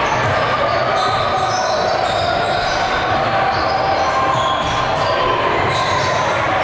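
Live basketball game in an echoing gym: a basketball bouncing again and again on the court over a steady din of players' and spectators' voices.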